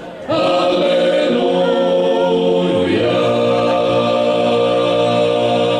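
Male klapa ensemble singing a cappella in close harmony, a Croatian Christmas carol. After a brief breath, a sung phrase moves into a new chord about three seconds in, with a low bass note added, held long.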